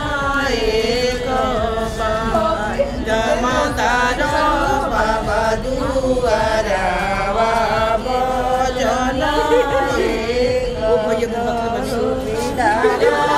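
Singing: a voice carries a melody that glides up and down with hardly a break, over music.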